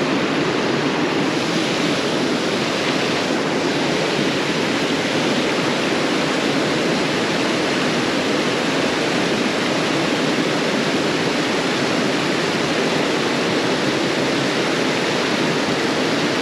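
Creek water spilling over a low concrete weir and churning into the pool below: a steady rushing that does not let up.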